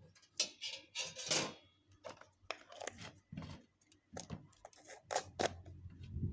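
Irregular clatter: a quick run of clicks, knocks and short scrapes of objects being handled.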